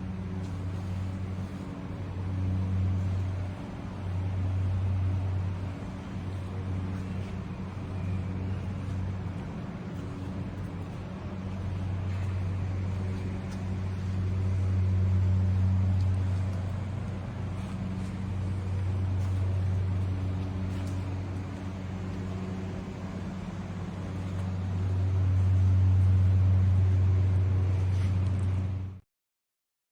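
Ellis Model 4000 miter band saw running: a steady low motor hum that swells and eases every few seconds, cutting off abruptly near the end.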